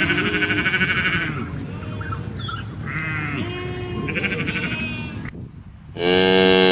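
Bleating livestock: several quavering, wavering calls one after another. A louder, deeper call begins near the end.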